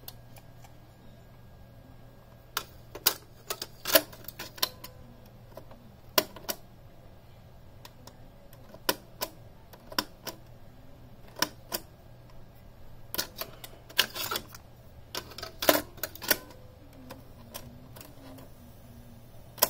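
Sharp mechanical clicks and clunks, irregular and repeated, from the Sony CFD-S01 boombox's cassette deck as its transport keys are pressed, with a cluster of them past the middle. A low steady hum runs underneath.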